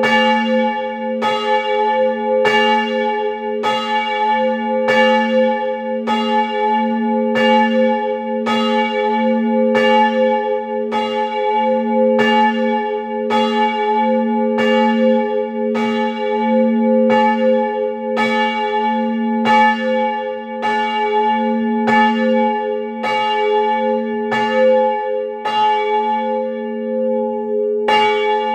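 Small church bell swinging and ringing alone, its clapper striking a little faster than once a second. Each stroke rings on into the next, so the bell's tone hums without a break.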